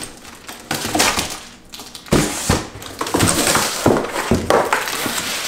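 Cardboard packaging scraping and rustling as a cardboard divider is pulled out of a shipping box, with bubble-wrapped metal parts crinkling underneath. The rustling is irregular, with a few sharp knocks about two to four seconds in.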